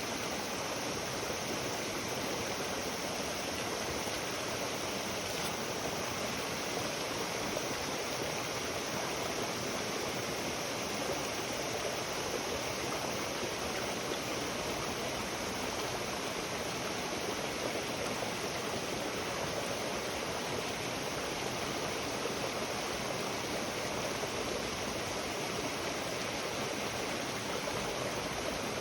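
Steady rushing of flowing water, unbroken and even throughout.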